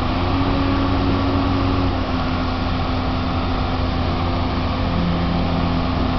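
Akerman H14BLC excavator's diesel engine running steadily while the machine works, with a held hum; a second, lower tone joins about five seconds in.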